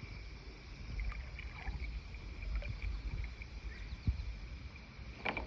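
Water sloshing and lightly splashing as someone wades slowly through still river water, over a low rumble and a steady high whine. A sharper splash or knock comes near the end.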